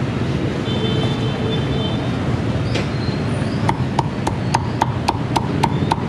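Meat cleaver chopping roast pork on a thick round wooden chopping block, starting a few seconds in with a fast, even run of strokes at about four a second, each with a short ring from the blade. Steady background noise underneath.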